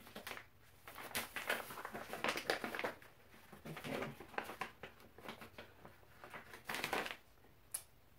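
Crinkling and rustling of a Bob's Red Mill flour bag as it is handled and turned over, in short irregular spells, with one sharp click near the end.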